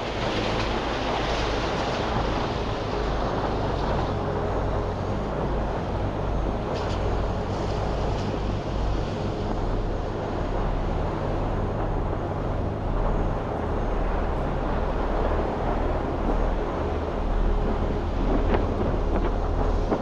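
Steady low rumble of an SUV driving on a snowy trail, engine and tyre noise together, with wind noise on the microphone.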